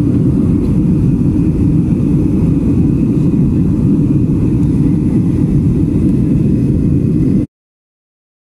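Steady low cabin noise of a Boeing 737 jet airliner in flight, the engines and rushing air heard from a window seat. It cuts off suddenly about seven and a half seconds in.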